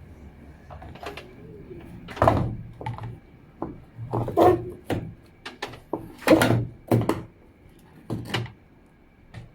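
A series of irregular knocks, clicks and clatters of hard objects being handled, about a dozen in all, the loudest a few seconds in, over a faint steady hum.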